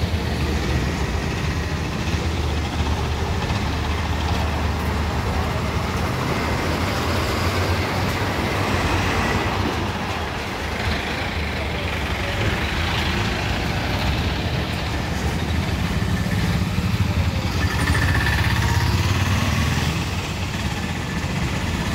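Heavy diesel engine running steadily close by, a deep continuous drone with road-traffic noise over it, growing a little louder near the end.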